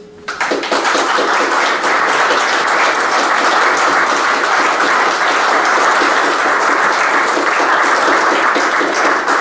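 Audience applauding a finished song, breaking out just after the start as the last guitar note fades, then holding steady.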